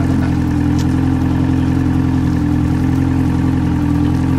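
An engine running steadily at an even speed, without revving.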